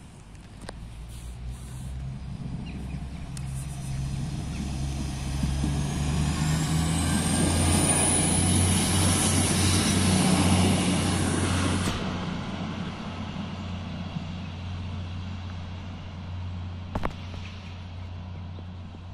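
A PESA SA133 diesel railbus approaching, passing close by and pulling away, its engine droning low and loudest about 8 to 12 seconds in. A high whine climbs in pitch as it nears and cuts off suddenly as it goes by, and a single sharp click comes near the end as the drone fades.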